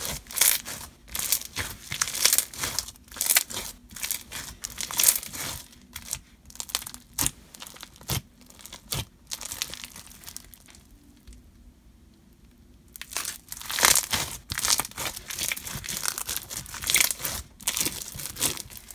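White glue floam-type slime packed with hard slushy beads being squeezed, stretched and folded by hand, giving a run of crunches and small bubble pops. The crackling eases off for about three seconds past the middle, then picks up again.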